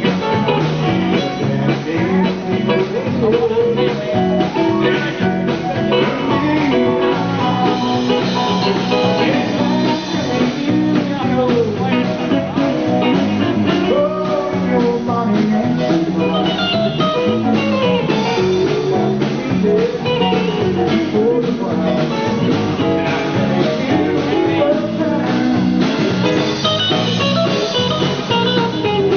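Electric guitar playing a lead solo with many bent notes sliding up and down in pitch, over a band's steady bass-and-drum backing.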